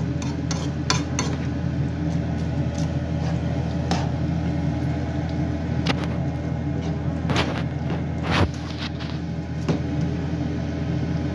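Vermicelli frying in oil in a nonstick pan, with a fork clinking and scraping against the pan every second or so, over a steady low hum.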